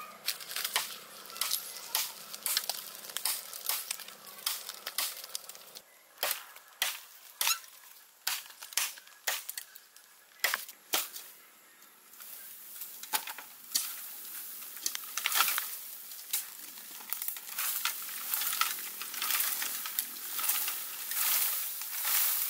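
Sharp chopping strikes on green bamboo, irregular, about one or two a second. From about halfway they give way to a long crackling rustle of bamboo leaves and branches, with a few more strikes in it.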